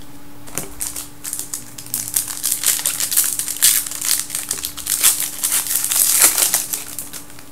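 Wrapper of a hockey card pack crinkling and rustling as the pack is torn open and handled. The crackle builds to its loudest near the end, then stops.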